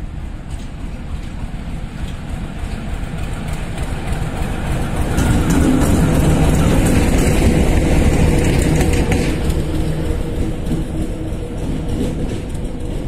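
ChME3 diesel shunting locomotive approaching and rolling past close by: a steady engine drone with wheel and rail noise. It grows louder, is loudest a few seconds in, then fades as it moves away.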